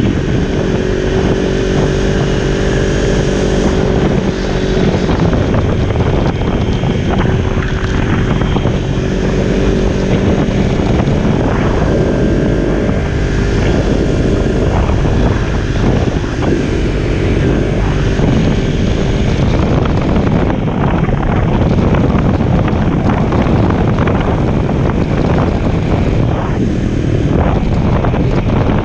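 Sport motorcycle engine running at a steady cruise, under heavy wind noise on the microphone. The engine's drone is clearest in the first half, and the wind rush covers more of it toward the end.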